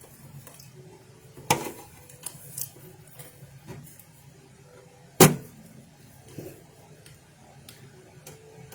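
Kitchen items being handled on a counter: two sharp knocks, about a second and a half and five seconds in, with small clicks and taps between them.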